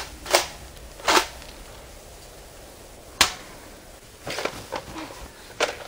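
Plastic clacks and pops of Nerf blasters being handled, primed and fired: two sharp snaps in the first second or so, a single crisp click about three seconds in, then a run of smaller clicks and knocks.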